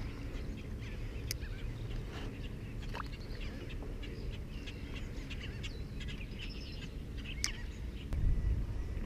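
Birds chirping and calling in short, scattered notes over a steady low rumble, with a louder low bump near the end.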